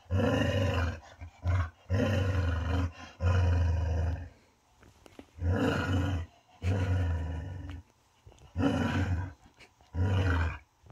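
A spaniel growling low and long, about eight growls with short breaks between them, a warning at an air freshener hanging on a door.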